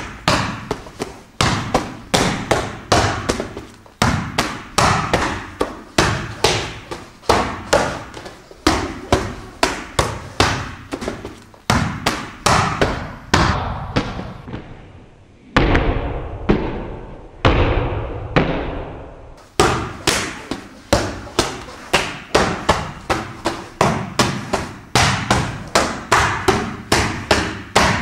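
Elbow strikes smacking into padded focus mitts in quick succession, about three sharp slaps a second. For a few seconds past the middle the hits come slower and sound duller.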